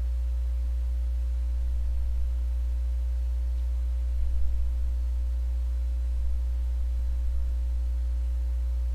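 A steady low hum with a few faint higher tones above it, unchanging throughout, with a brief faint handling noise about four seconds in.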